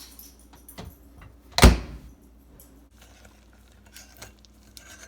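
Microwave oven door closing or popping open with one loud, deep thunk about a second and a half in, with a few light clicks of handling around it.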